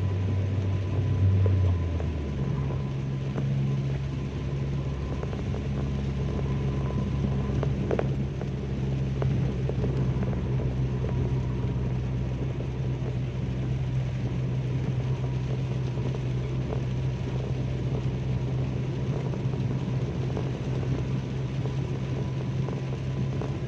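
Car interior while driving in heavy rain: a steady low engine and road drone under a constant hiss of rain and wet tyres. The drone's pitch steps up about two seconds in.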